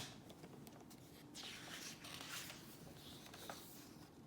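Faint rustle of paper: the picture book's pages being handled and turned, with a couple of small clicks.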